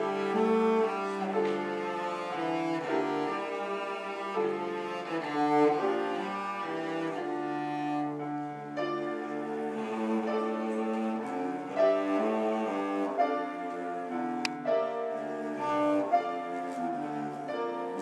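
A cello bowed through a melody of held notes, moving from note to note every half second to a second or so.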